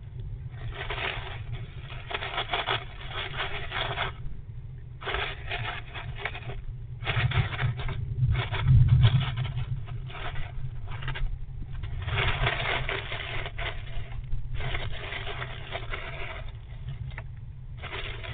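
Fox squirrel grooming and shifting inside a wooden nest box: scratchy rustling in bouts of one to three seconds, broken by short pauses, over a steady low rumble.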